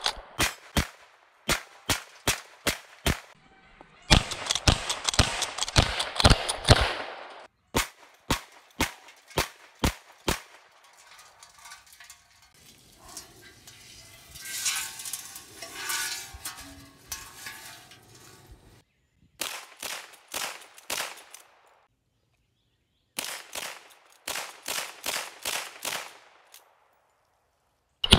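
A short-stroke Winchester 1873 lever-action rifle in .32-20 (32 WCF) fired in quick strings of shots, about three a second, in several bursts with pauses between.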